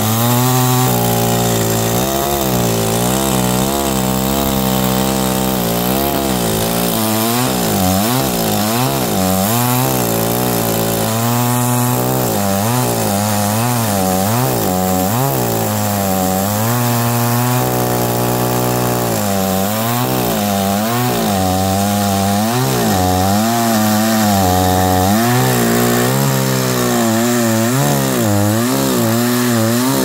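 Gasoline chainsaw cutting through a thick oak log, running under load. Its engine pitch keeps rising and falling as the chain bites into the wood.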